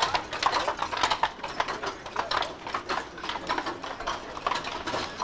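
Horse hooves clip-clopping and a wooden wagon's wheels clattering on cobblestones: a stream of irregular knocks and rattles that grows softer after about two seconds.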